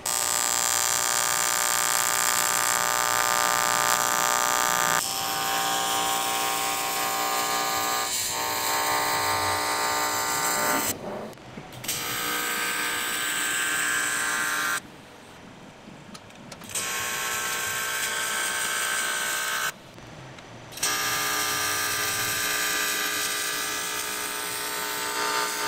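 AC TIG welding arc buzzing steadily on a cast aluminum intake manifold, starting abruptly and breaking off three times for a second or two as the arc is stopped and restarted.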